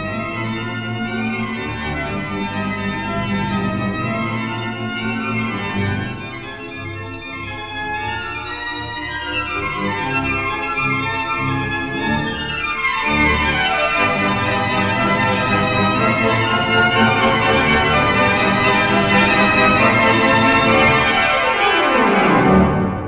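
The John Hays Hammond Jr. Museum pipe organ playing a brisk, busy piece from a mono LP. A rapid falling run comes about halfway through and another just before the end, as the music grows louder toward its close.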